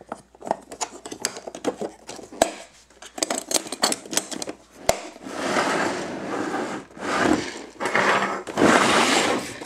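Plastic parts organizer being handled on a wooden bench: a run of small clicks and rattles with two sharper snaps, about two and a half and five seconds in, then longer rubbing and scraping sounds of plastic being slid and shifted.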